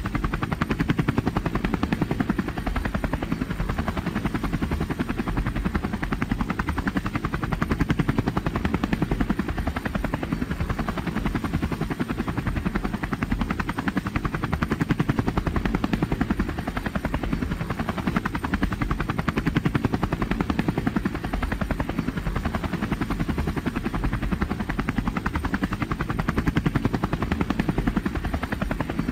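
Robinson R44 Clipper II helicopter in flight, heard from inside the cabin: steady rotor and engine noise with a rapid, even beat from the blades.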